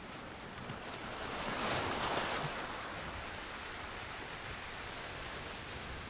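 Small sea waves lapping and washing against shoreline rocks, one wash swelling up about a second and a half in and then fading back to a steady low wash.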